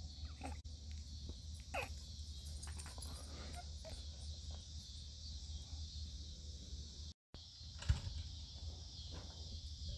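Evening outdoor ambience: crickets chirping steadily over a low rumble on the phone's microphone, with a few faint short sounds in the first seconds. The sound drops out for an instant just after seven seconds, and a sharp knock, the loudest moment, follows about eight seconds in.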